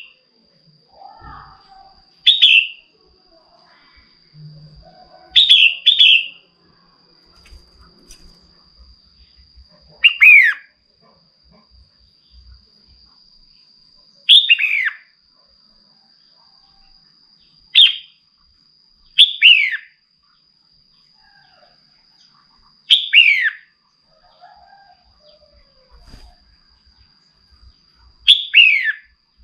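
Female red-whiskered bulbul calling: short, sharp notes that sweep downward, repeated every few seconds, sometimes two close together. These are the calls used to stir up a male.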